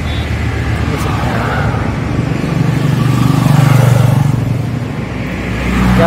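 Road traffic: a motor vehicle's engine and tyre rumble swells as it passes, loudest about halfway through, then fades back into steady traffic noise.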